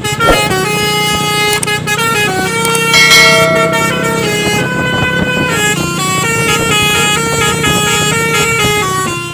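Truck's 'telolet basuri' multi-trumpet musical horn playing a tune, several tones sounding together and stepping from note to note, over a steady low rumble.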